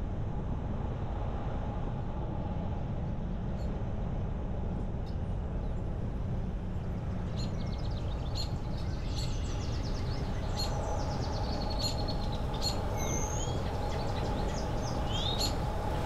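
Steady low road and wind rumble of a car driving, with birds chirping from about seven seconds in: many quick, high chirps and short rising and falling whistles.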